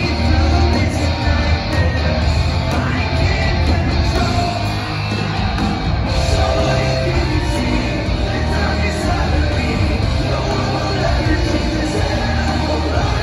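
Hard rock band playing loud and live through a large venue's PA, heard from the crowd: distorted electric guitars, drums and bass with a singer.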